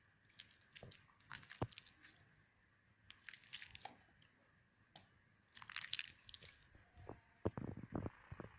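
Barrel o Slime toy slime being squeezed and mixed by hand, giving wet crackling clicks in four short bursts, about every two seconds.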